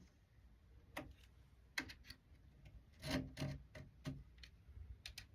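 A very sharp knife scoring guide lines into the wooden edge of a door: a series of short, faint scrapes and ticks at irregular spacing, about eight strokes.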